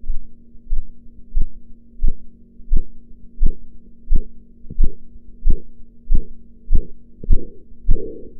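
Korotkoff sounds heard through a stethoscope over the brachial artery as the blood pressure cuff deflates: a regular tapping pulse, a little under one and a half taps a second, over a steady low hum. The taps grow louder and sharper toward the end.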